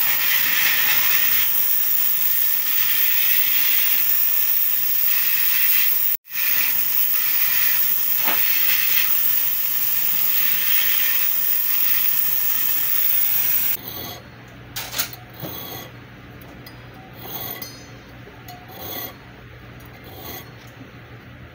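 Rotary handpiece spinning a pink abrasive cone against the inside of a gold ring: a steady high hiss that swells and eases as the stone bears on the metal, cutting out for a moment about six seconds in. About 14 seconds in it gives way to quieter, irregular strokes of a jeweler's saw blade cutting the gold.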